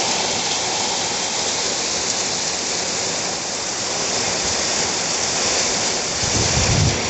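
Heavy storm rain pouring steadily in a loud, even hiss. Wind gusts begin buffeting the microphone with a low rumble about six seconds in.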